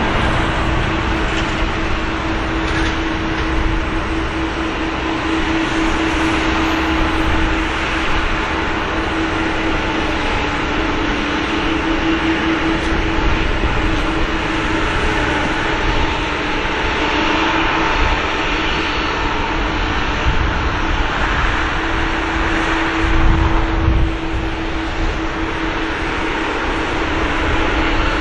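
Boeing 777 twin turbofan engines running at taxi power as the airliner turns onto the runway: a steady jet noise with a held low hum.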